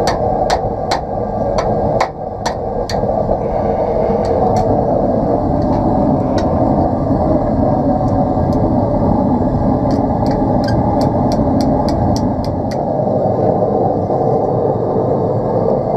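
Hand hammer striking hot steel on an anvil, bending a steel fire striker into shape: a quick run of sharp metallic blows in the first few seconds, a few spaced strikes, then another quick run about ten to thirteen seconds in. A steady rushing noise runs underneath.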